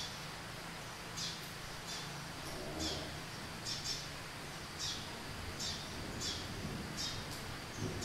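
Eurasian tree sparrow chirping: short, sharp chirps, about ten of them, repeated every half second to a second over a steady background hiss.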